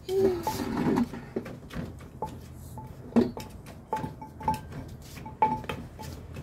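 Wooden pestle pounding green papaya salad in a clay mortar: uneven dull knocks, about two or three a second, some with a short clink from the spoon against the mortar.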